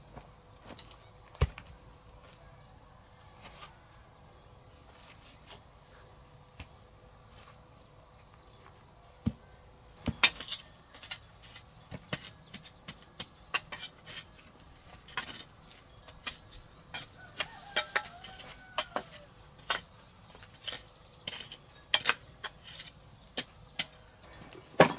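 Sharp knocks and clicks, a few at first and then coming thick and fast from about ten seconds in, over a steady insect chirring.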